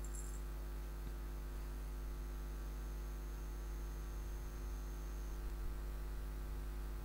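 Steady electrical mains hum with many even overtones, and a faint thin high whine that stops about five seconds in.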